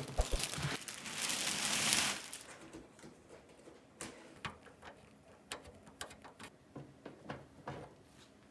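Plastic wrap rustling and scraping as a Fractal Design Pop Mini Silent PC case is slid out of its cardboard box, with a few low thumps in the first second. After that the sound drops to a string of about eight sharp taps and clicks from handling the case's panels.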